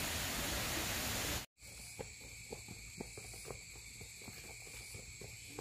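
A steady rushing noise that cuts off abruptly about a second and a half in. After it, insects trill steadily in two high, even bands, with light footsteps about twice a second on dirt ground.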